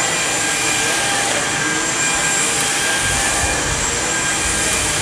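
Samsung Jet VS70 cordless stick vacuum running on medium power over thick carpet, a steady motor whine over a rushing airflow, its turbo action brush roll working the pile. A deeper low rumble comes in about three seconds in.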